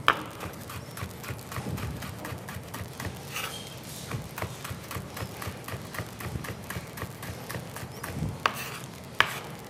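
Chef's knife dicing cucumber on a wooden cutting board: quick, steady knocks of the blade on the board, about four a second, with a louder chop at the start and two near the end.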